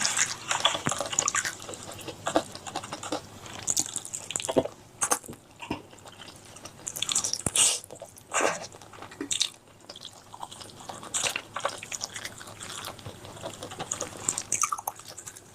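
Wet chewing and mouth smacking while eating chicken curry with rice, in irregular sticky clicks and squelches with short pauses between bites.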